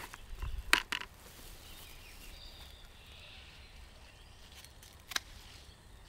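Garden secateurs snipping through flower stems: a couple of sharp clicks about a second in and another single snip near the end.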